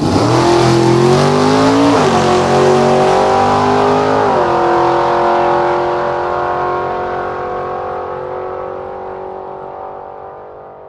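A car accelerating hard, its engine note climbing and then dropping twice at gear changes about two and four seconds in. It then holds a steady note while fading away as the car pulls off.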